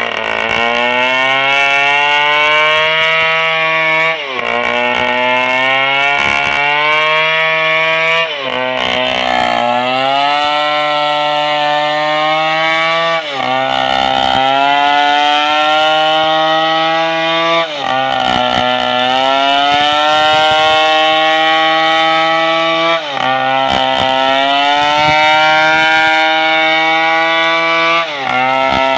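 Stihl 070's big two-stroke engine running at high revs while ripping a sengon log lengthwise. About every four to five seconds the revs dip sharply and climb back.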